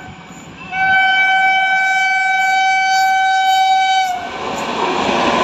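Horn of an Indian Railways WAP7 electric locomotive hauling an express toward the listener. It sounds one long, steady blast of about three seconds, starting a little under a second in and dipping slightly in pitch as it cuts off. After that the rumble of the approaching train rises.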